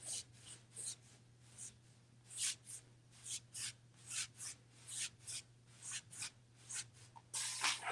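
Paintbrush swishing across a wooden wardrobe door in short scrubbing strokes, about two a second, blending wet paint, with a longer, louder stroke near the end. A low steady hum runs underneath.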